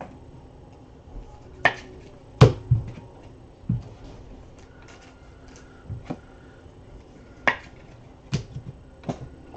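Trading cards and packs handled on a tabletop, giving irregular sharp taps and knocks as cards are shuffled and set down. The loudest tap comes about two and a half seconds in.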